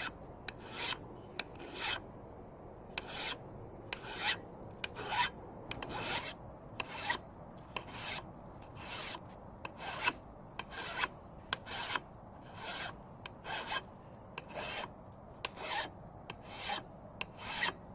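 Flat steel hand file rasping along the steel edge of a mattock blade in repeated downward push strokes, about two a second with a short pause near the start, to sharpen its cutting edge.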